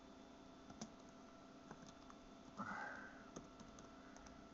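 Faint, scattered keystrokes on a computer keyboard as text is typed, with a short breath about two and a half seconds in.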